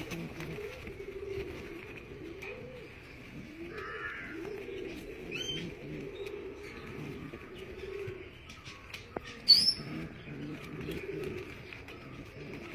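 Several curly-feathered pigeons cooing continuously in low, overlapping, wavering coos. A short high chirp stands out as the loudest sound about two-thirds of the way through.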